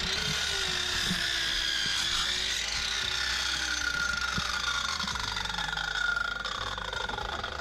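Sliding compound mitre saw with its blade spinning, a steady whine that slowly falls in pitch and fades as the saw runs down.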